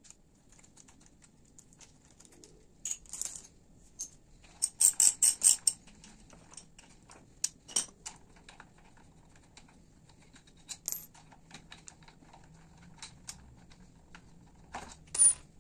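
Scattered sharp metallic clicks and clinks of the front brake caliper, its bolts and the brake-line clamp being handled on the fork leg. A quick run of about half a dozen clicks comes around five seconds in.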